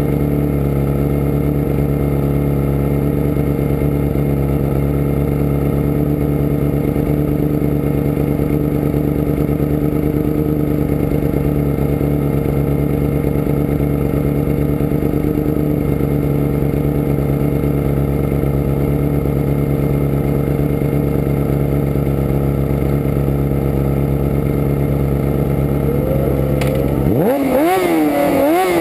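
Superbike engines idling steadily on the starting line, then revved hard about 27 seconds in as the bike launches off the start, the pitch climbing and wavering.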